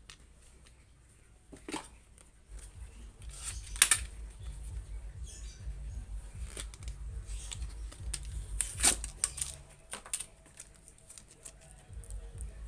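Plastic microSD card packaging being handled and opened by hand: sharp plastic clicks and crackles, the loudest about four seconds in and another cluster around nine seconds, with hand-handling rumble on the table.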